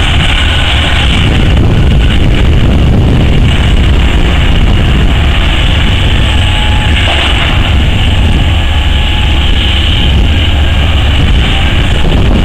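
O&K RH120-C hydraulic mining shovel at work, its big diesel power and hydraulics running loud and steady with a deep rumble as it swings and tips a bucket of rock into a haul truck.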